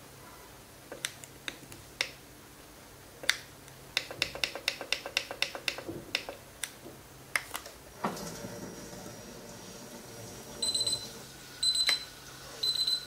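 Moulinex Cuisine Companion food processor: quick clicks of its control keys, in a fast run as the + key is tapped to step the temperature up, then about eight seconds in its motor starts running with a steady hum. Near the end a high beep repeats about once a second, four times: the appliance's alert that the timer has run down to zero.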